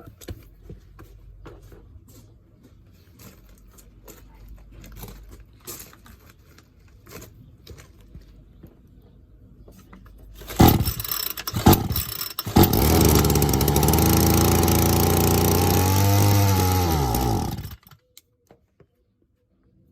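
Qualcast petrol strimmer's small two-stroke engine being started. After about ten seconds of faint clicks, it gives a few short coughs, then catches and runs steadily for about five seconds. Its pitch dips and rises once near the end, and it cuts off suddenly. This is a first successful start after a new primer bulb and fuel pipes were fitted.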